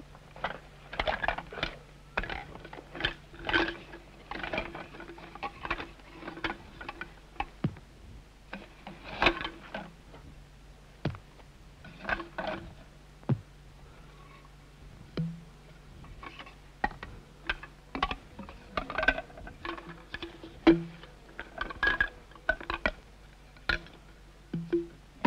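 Irregular sharp knocks and taps of lengths of bamboo being cut and worked with a hand tool, with short pitched notes in between.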